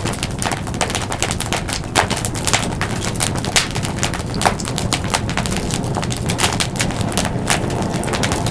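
Wood campfire crackling: many irregular sharp pops and snaps, some louder than others, over a steady low background noise.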